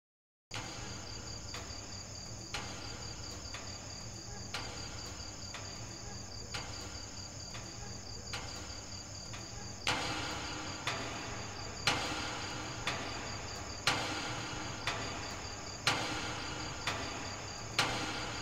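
Night ambience of crickets chirping steadily. A sharp tick sounds about once a second and grows louder from about halfway.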